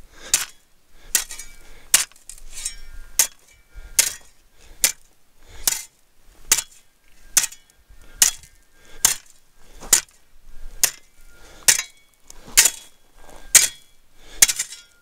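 Steel shovel blade chopping into hard-packed, rocky ground, used like a pick to break it up: a steady run of sharp strikes, a little more than one a second, some with a brief metallic ring.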